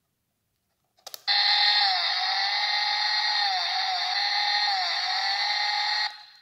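Stihl chainsaw keychain's sound button clicked, then its small speaker plays a recorded chainsaw engine running, the note dipping briefly in pitch several times before it cuts off suddenly.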